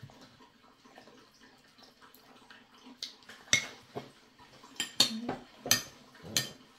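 Metal spoon scraping and clinking against a plate while someone scoops up the last food. It starts quiet, then from about halfway through there is a quick series of sharp clinks.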